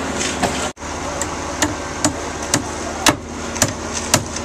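Hammer blows, about two a second, over a steady machinery hum at a construction site, after a brief drop-out in the sound about a second in.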